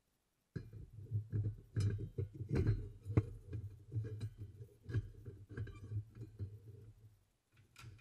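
Light metallic clinks of blacksmith tongs handling a red-hot knife blade, over a low, uneven rumble that starts suddenly about half a second in.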